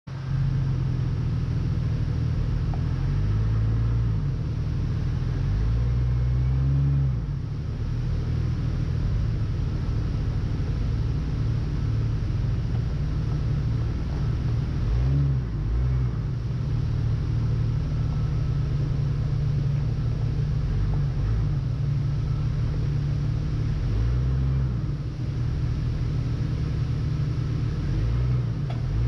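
A 4x4 Jeep's engine running steadily with a low rumble, its note rising and falling several times as the throttle changes.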